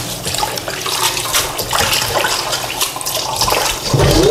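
Kitchen tap running into a stainless steel bowl while hands swish and squeeze rice noodles in the water, with irregular splashes. Near the end the bowl is tipped and its water pours out into the sink.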